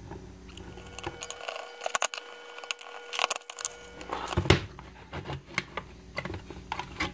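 Small machine screws and a screwdriver clinking against the sheet-metal case of a switching power supply and the tabletop as the cover screws are taken out: a scattering of sharp metallic clicks and taps, the loudest about four and a half seconds in.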